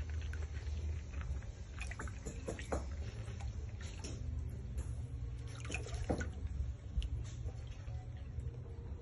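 Otter rolling and paddling in shallow water: light splashing and sloshing with scattered sharper splashes and drips, the strongest about a third of the way in and again about two thirds in, over a steady low rumble.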